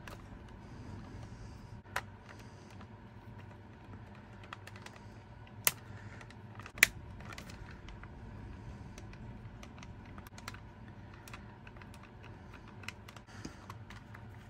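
Light, scattered clicks and taps of a precision screwdriver working the small screws out of the metal back of an ALBA personal cassette player, and of the player being handled. A few louder clicks come about 2, 5.5 and 7 seconds in.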